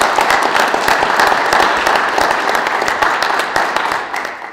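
Audience applauding, many hands clapping densely. It cuts off suddenly near the end.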